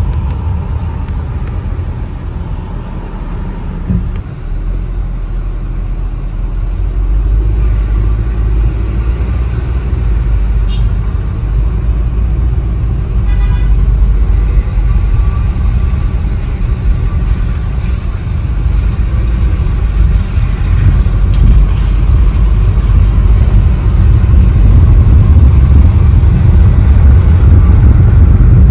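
A car moving slowly in stop-and-go traffic, heard from inside the cabin: a steady low rumble of engine and road that grows louder in the second half. There is a brief stuttering pitched sound about halfway through.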